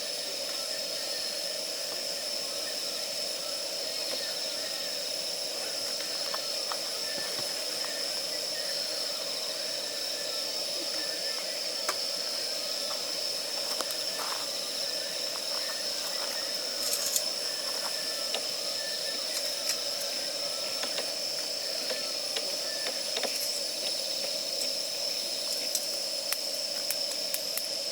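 Damp firewood burning, with sharp crackles and pops over a steady hiss; the pops come more often in the second half.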